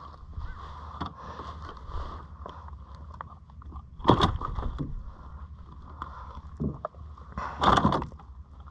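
Knocking and scraping on a fishing kayak as a freshly caught snapper is handled, over a steady low rumble of water and wind. Two louder knocks come about four and about seven and a half seconds in.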